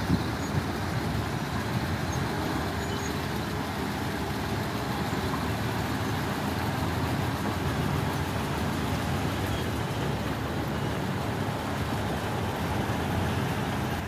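Heavy construction machinery engines running steadily: a continuous low rumble of excavators and dump trucks working.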